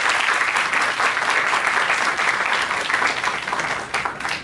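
An audience applauding: steady, dense clapping that dies away near the end.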